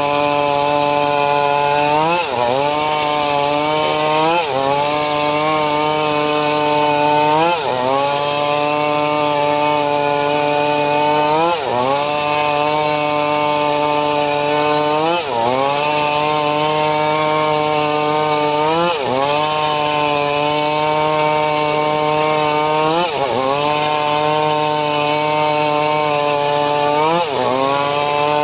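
Homemade sawmill cutting mahogany: a steady, loud pitched drone with a hiss of sawing. The pitch sags briefly and recovers every three or four seconds as the blade loads in the cut.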